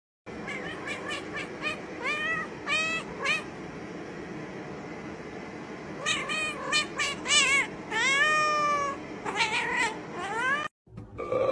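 Several cats meowing: a run of short meows in quick succession, a pause, then more meows, some long and drawn out, over a steady background hiss.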